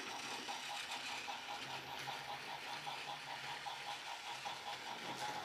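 Battery-powered remote-control Thomas the Tank Engine toy train running along its plastic track: the small electric motor and gears whir steadily with a fast, even pulsing rattle.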